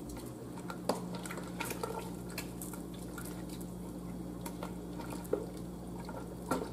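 A spoon stirring seasoned liquid in a large enamel stockpot, with a few light clinks of the spoon against the pot, over a steady low hum.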